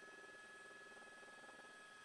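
Near silence: faint, steady high-pitched electronic tones in the broadcast audio line.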